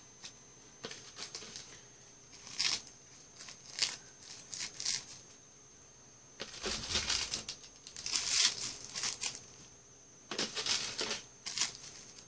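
Dried seasoned laver (gim) sheets being torn and crumbled by hand, crisp crinkling in irregular bursts, loudest about eight seconds in.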